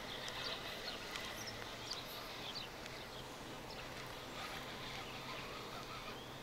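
Faint outdoor ambience with scattered short bird chirps over a low steady hum.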